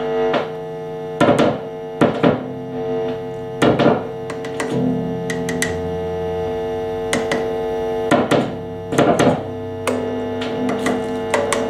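Steady mains hum and buzz through the amplifier from a Strat-style electric guitar with a prewired pickguard, broken by irregular crackles and pops as a screwdriver tip touches the pickguard screws and pickups. The owner takes the hum for an earthing (grounding) fault in the pickguard wiring.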